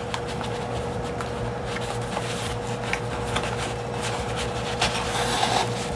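Paper pages and cotton crochet thread being handled while hand-sewing a journal: light rustling and scattered soft clicks as the needle and thread are drawn through pierced holes in the paper, over a steady faint hum.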